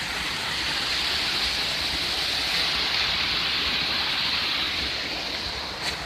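Small hot-spring waterfall splashing steadily into a rock pool, a continuous rushing hiss of falling water.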